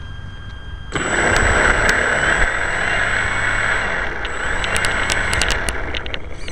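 Electric motor and propeller of a ParkZone T-28 Trojan foam RC plane throttled up suddenly about a second in, heard up close from the onboard camera. It makes a loud steady rush with a thin high whine as the plane starts its takeoff roll on tarmac. Several sharp clicks come near the end.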